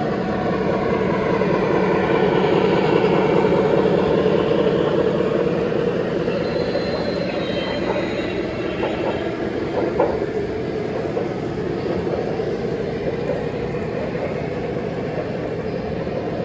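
A three-rail O gauge model train running on the layout track: a steady rumble of wheels on rails that swells over the first few seconds and then eases slightly, with a sharp click about ten seconds in.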